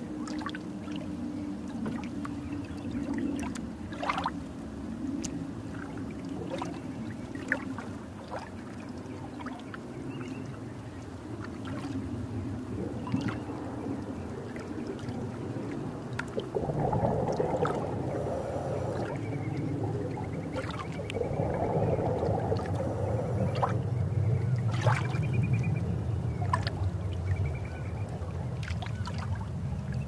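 Underwater-style water ambience: a low steady rumble with bubbling and gurgling and scattered faint clicks, and two louder spells of bubbling past the middle.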